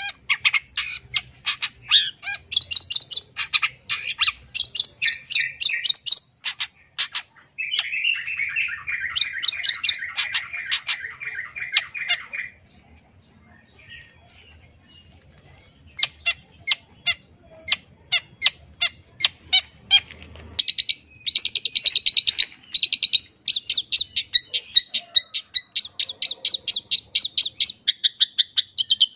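Long-tailed shrike (cendet) singing a varied 'full isian' song packed with mimicked phrases: rapid chattering notes, then a harsh buzzing rasp about eight seconds in that lasts some four seconds. After a short lull come fast clicky notes, then a rapid high trill near the end.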